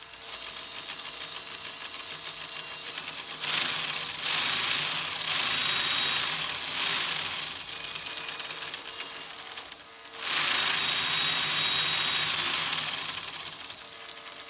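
Wooden model V8 engine running fast, its wooden crankshaft, pistons and belt-driven pulleys clattering in a rapid, continuous rattle. It gets louder twice, once about three and a half seconds in and again about ten seconds in.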